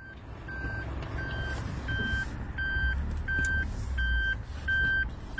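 A vehicle's electronic warning beeper sounding a steady run of short beeps of one pitch, about three every two seconds, over a low engine rumble.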